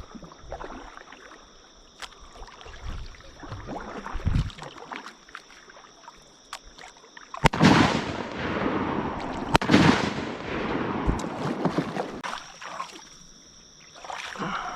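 Two shotgun blasts about two seconds apart, each very loud with a long echoing tail, after a quieter stretch of light knocks.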